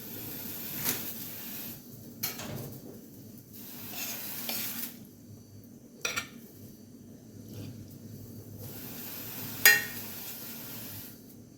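Kitchen handling sounds: plates and cutlery being moved, with a few sharp clinks and knocks, the loudest about ten seconds in.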